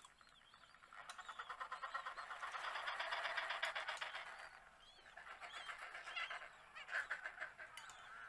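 Penguins calling with rapid, pulsing calls. One long call swells and fades over about three seconds, then shorter calls follow, with a louder one near the end.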